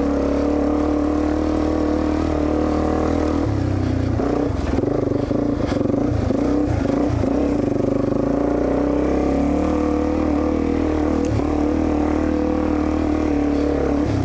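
Dirt bike engine running steadily on the trail. The pitch wavers with throttle changes through the middle, and there are a few short knocks about five seconds in.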